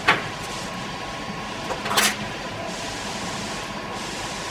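Small plastic handling noises as a servo and its lead are worked into a 3D-printed PLA fuselage: a sharp click right at the start and a longer rattling click about two seconds in, over a steady background hum.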